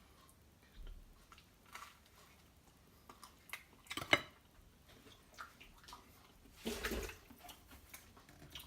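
Biting and chewing a toasted barbecue chicken sandwich, heard as faint scattered wet mouth sounds and small crackles. A sharper sound comes about four seconds in and a longer, louder one around seven seconds in.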